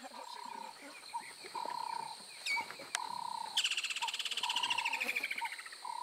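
Wild animal calls: a short mid-pitched call repeated about once a second, a quick falling whistle about two and a half seconds in, and a fast trill falling in pitch from about three and a half to five seconds in, over a faint steady high tone.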